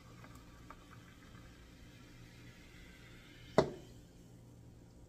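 Carbonated soda poured from a can into a glass, fizzing faintly. About three and a half seconds in, a single sharp knock as the aluminium can is set down on the table.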